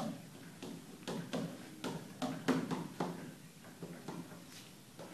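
Chalk tapping and scratching on a chalkboard as figures are written, a series of short irregular strokes.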